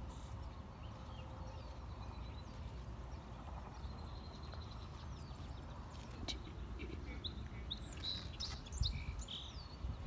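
Outdoor background: a steady low rumble, with small birds chirping several short high calls in the second half.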